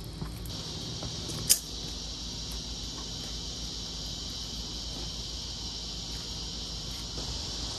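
Steady high-pitched insect chorus, a cricket-like buzz, over a low background hum, with a single sharp click about a second and a half in.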